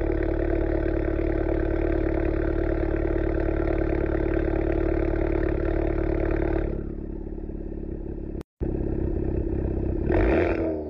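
Honda Civic Type R FK8 2.0-litre turbocharged four-cylinder exhaust on a cold start, running a steady fast idle that drops suddenly to a quieter idle about two-thirds of the way in. After a brief dropout, an engine fires up near the end with a short flare of revs before settling.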